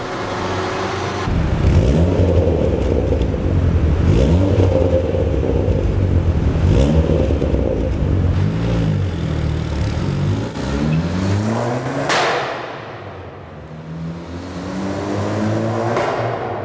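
Fiat 500 Abarth's turbocharged 1.4 four-cylinder running through a decat pipe and Ragazzon exhaust, accelerating hard. The pitch climbs and falls back several times, as in revving up through the gears. Two sharp bursts come near the end.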